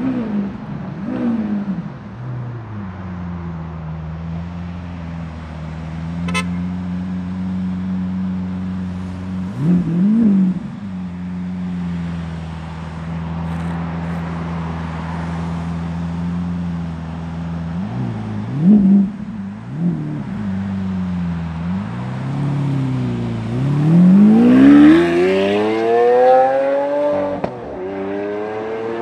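Lamborghini Aventador S's V12 engine idling steadily, blipped three times, then revved hard as the car pulls away: the pitch climbs, drops at a gearshift and climbs again near the end.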